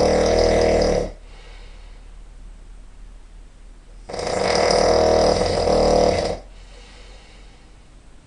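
A person snoring really loud: two long snores of about two seconds each, the first ending about a second in and the second starting about four seconds in, with quieter breathing between them.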